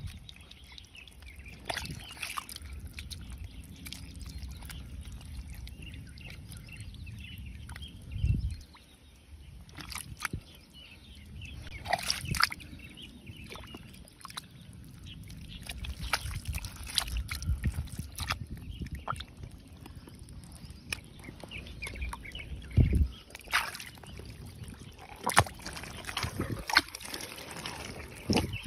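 A hand squelching and sloshing through wet mud and shallow muddy water, with irregular splashes and wet clicks and two dull thumps, one about eight seconds in and one about twenty-three seconds in.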